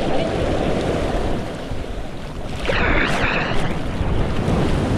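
Ocean surf breaking and washing on a beach, with wind buffeting the microphone; the surf eases a little about two seconds in and swells again, and a brief high cry sounds about three seconds in.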